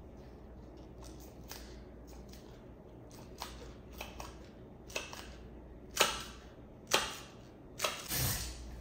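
Kitchen work sounds: a run of sharp knocks and clicks, a few light ones first, then two louder knocks about a second apart and a longer clattering knock near the end.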